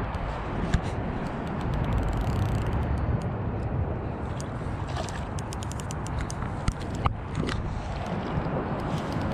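Wind rumbling and buffeting on the microphone, with scattered light clicks through the middle.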